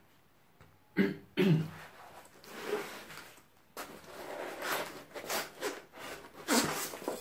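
A man coughs twice in quick succession about a second in. Then packaging rustles and crinkles as hands dig through a cardboard box and handle a bubble-wrapped parcel.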